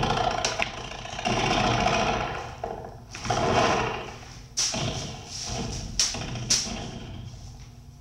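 Harsh electronic noise from a live noise-performance rig: swells of distorted noise, then three sharp clicks or pops in the second half, dying down near the end.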